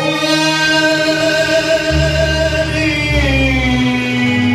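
A male singer holds one long note in an Arabic pop song, stepping down in pitch about three seconds in, over band accompaniment; a deeper bass line comes in about two seconds in.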